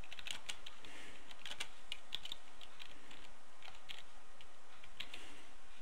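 Typing on a computer keyboard: an uneven run of key clicks as a short phrase is typed.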